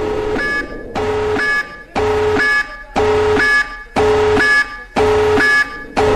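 Electronic emergency alert alarm beeping loudly about once a second, each beep a harsh tone lasting about half a second.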